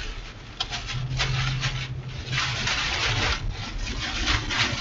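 Rear-flank downdraft winds buffeting a moving vehicle, with wind-driven particles striking the windshield and body in many sharp, irregular ticks over a steady rushing noise. A low steady hum comes in about a second in.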